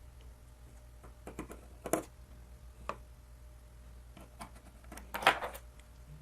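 Scattered light clicks and taps of small metal tools, a precision screwdriver and tweezers, against an iPhone 8 Plus's frame as the tiny motherboard screws are placed and driven. The sharpest click comes about two seconds in, and a short cluster of taps comes near the end.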